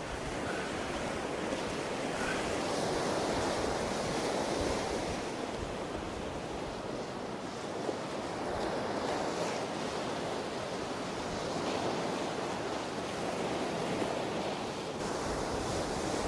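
Ocean surf breaking on the beach: a steady wash of waves that swells and eases every few seconds.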